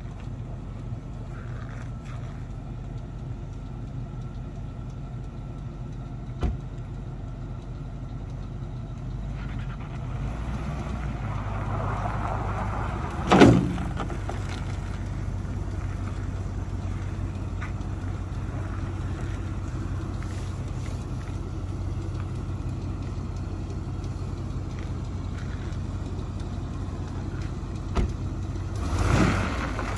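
Full-size Chevrolet SUV's engine running at low speed as it creeps up to and onto steel trailer loading ramps, with one loud clank about halfway through and a couple of knocks near the end.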